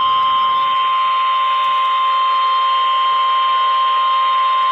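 Emergency Alert System attention tone: one loud, steady electronic tone at a single pitch. It signals that a tornado warning broadcast is about to follow.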